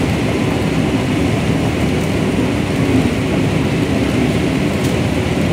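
Corn combine harvester running steadily under load, a dense low machine noise as its header takes in standing dry corn stalks.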